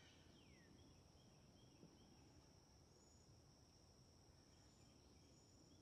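Near silence: faint outdoor ambience with a steady high-pitched insect buzz and a few faint chirps.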